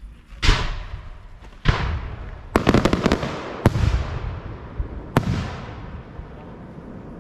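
Caffero Golden Spider aerial firework shells going off: a series of sharp bangs, roughly one to one and a half seconds apart, with a quick run of cracks in the middle. Each bang trails a rumbling echo that fades away toward the end.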